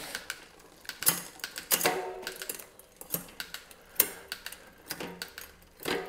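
Mountain bike drivetrain turned by hand in a repair stand: the chain running over a Sunrace CSMX3 11-46 10-speed cassette, with irregular clicks and clunks as the rear derailleur shifts it across the cogs, some with a short metallic ring. The gears are being run through to check the shifting on the newly fitted cassette.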